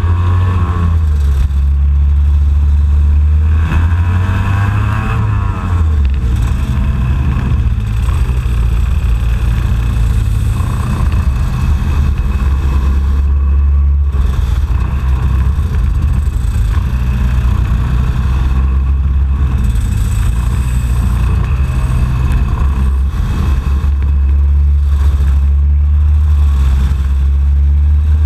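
IAME X30 125cc two-stroke kart engine running hard at racing speed, heard from on board, its pitch dropping and climbing again several times as the kart brakes for corners and accelerates out.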